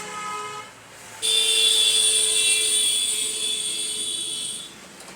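A loud, steady horn-like tone held for about three and a half seconds, fading slightly toward its end, after a shorter, fainter tone near the start.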